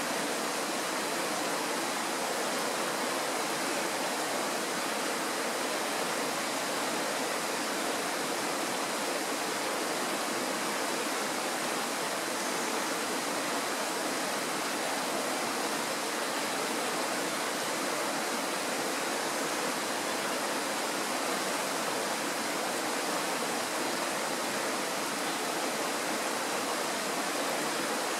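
Kirowa Woda, a Tatra mountain stream, running: a steady, even rush of water that holds the same level throughout.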